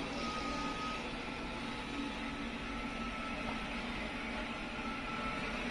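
Robot vacuum's fan and motors running steadily, with a low hum under a faint thin whine.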